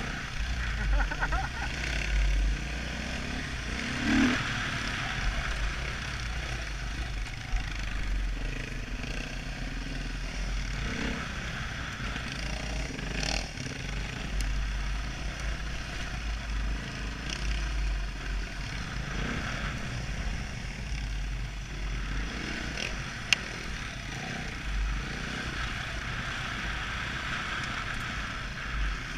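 Dirt bike engine running as the bike is ridden along a dirt trail, heard from a helmet-mounted microphone with heavy wind rumble. A few short clatters, and one sharp tick near the end.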